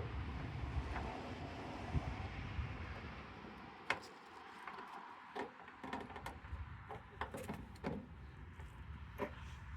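Scattered light clicks and knocks of metal hardware being handled during a truck door striker bolt install, over a steady low rumble of wind on the microphone.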